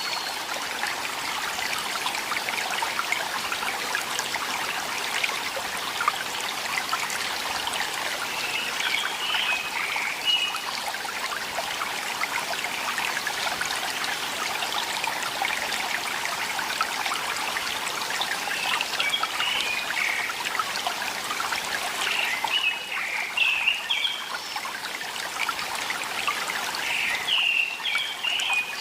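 Water trickling steadily in a small stream, with a bird singing short warbling phrases four times, the later ones closer together.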